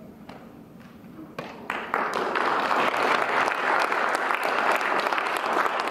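Audience applauding: after a quiet second or so, a few scattered claps start, then build into steady applause by about two seconds in.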